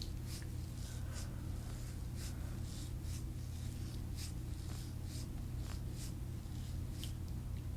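Hands rubbing and sliding over skin and clothing in a massage, soft swishes about once a second, irregularly spaced. A steady low hum runs underneath.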